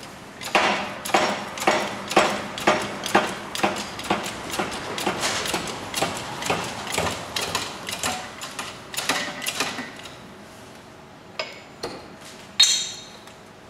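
Hydraulic shop press being pumped to push an old wheel bearing out of a hub carrier: metallic clicks at about two a second, fading after about ten seconds, then two sharp metal knocks near the end.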